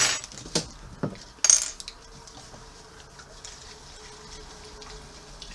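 Glass bottle of sparkling mineral water handled with a few clinks and knocks, and a short hiss about a second and a half in. Then the water is poured into a plastic cup, with a faint fizz.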